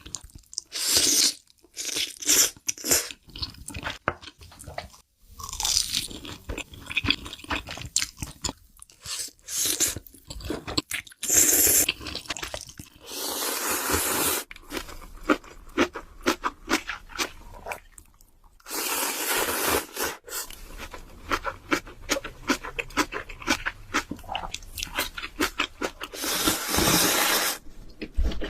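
Close-miked mukbang eating: noodles being chewed with a steady run of crunchy, wet clicks, broken by a few long slurps lasting a second or so each.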